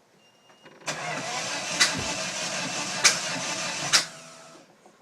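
Car engine turning over on the starter for about three seconds without catching, with three sharp backfire bangs roughly a second apart, then winding down. This is a no-start with backfiring after a Megasquirt engine-management install, although the ignition timing is said to be lined up.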